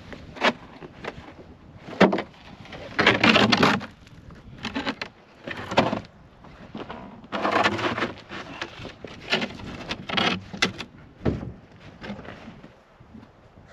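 Plywood floor sheets being lifted off frozen lake ice: a string of wooden knocks and clatters, with two longer scraping stretches about three and seven seconds in.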